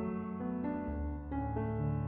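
Background music: soft piano-like keyboard chords changing every half second or so.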